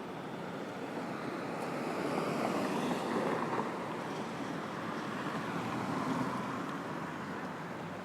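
Street traffic on a busy city avenue: a steady rush of vehicles going by, swelling twice as nearer ones pass.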